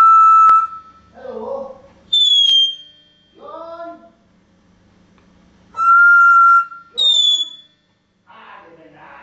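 African grey parrot whistling a two-note phrase twice: a steady held note, then a short higher note that falls slightly. Short voice-like calls come between the whistles.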